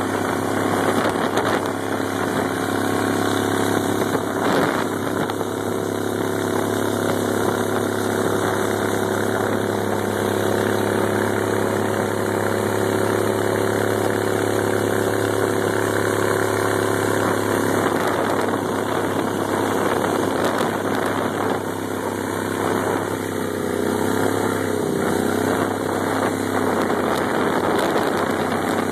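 Mud boat's tiller-steered mud motor running steadily at speed while towing a rider, over water spray rushing along the hull. Its pitch dips and recovers briefly about 24 seconds in.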